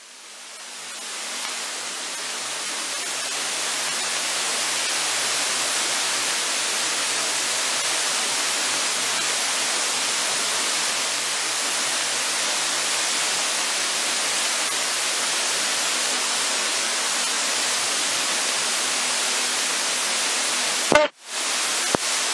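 Steady static hiss on the cockpit radio and intercom audio feed. It fades in over the first few seconds and cuts out briefly about a second before the end.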